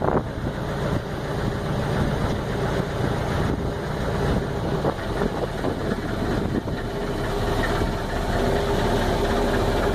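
Steady hum of a small ferry boat's engine running as the boat moves across the river.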